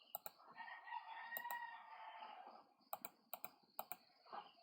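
Scattered clicks of a computer mouse and keyboard, several of them in quick pairs. Behind them a faint, drawn-out sound with a steady pitch lasts about two seconds.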